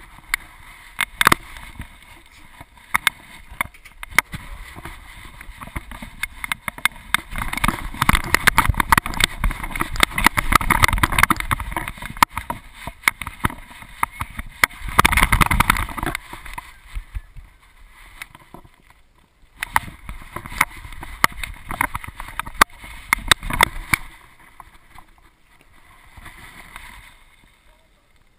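Rubbing, knocking and wind noise from a GoPro strapped to a dog's back as the dog moves around, with many sharp clicks. It gets louder for a few seconds twice, in the middle, and quieter near the end.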